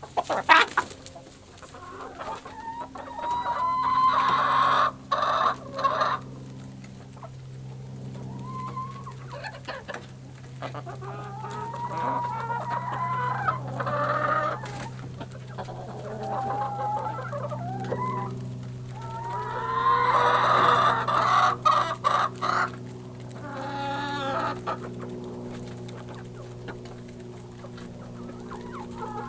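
Chickens in a hen house clucking and squawking in repeated calls, loudest about 4, 14 and 20 seconds in, over a steady low hum.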